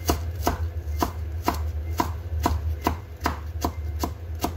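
Kitchen knife chopping leafy greens on a plastic cutting board: steady, evenly spaced knocks of the blade on the board, a little over two a second.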